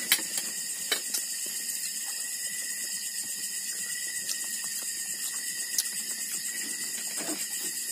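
A steady high-pitched chorus of night insects, with a few light clicks and taps from eating at the table.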